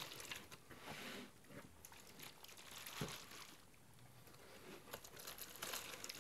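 Faint crinkling and rustling of clear plastic packaging bags being handled, with a soft knock about three seconds in.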